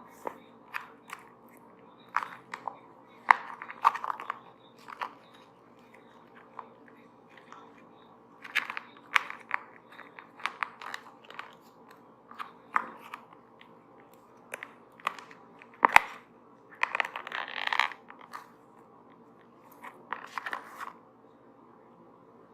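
Brush bristles stroked and dabbed over a microphone, giving irregular clusters of close scratchy rustles and sharp clicks with short pauses between them.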